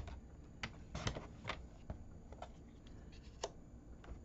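Paper trimmer and cardstock being handled during a cut: a series of sharp clicks and light rustles, a few to the second, the loudest right at the start.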